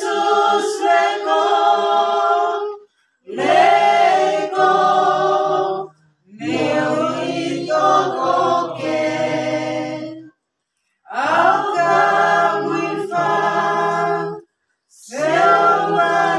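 Small church choir of women singing a hymn a cappella, in phrases of about three to four seconds with short breaks for breath between them.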